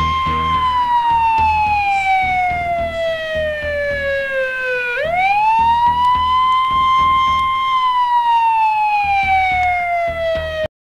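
Wailing emergency-vehicle siren: the pitch sinks slowly for about four seconds, sweeps quickly back up about halfway through, then sinks slowly again, over a low rhythmic pulse. It cuts off suddenly just before the end.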